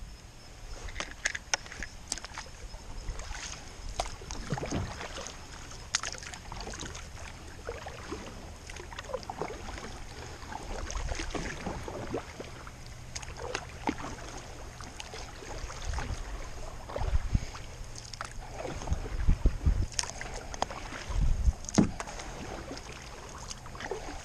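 Kayak paddling: a paddle dipping and splashing in calm river water at an irregular pace, with scattered sharp clicks and low knocks of the paddle and gear against the plastic hull.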